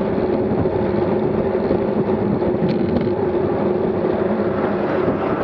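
Steady rush of wind on the microphone and road noise from a road bike riding at about 24 mph, with a faint steady hum.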